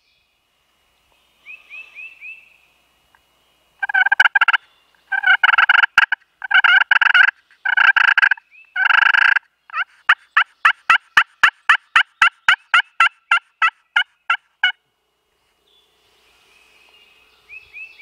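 Hand-held pot-style friction turkey call run to imitate a hen. A few soft yelps come first, then five long loud calls, then a fast even run of about twenty short sharp notes, roughly four a second, that stops abruptly.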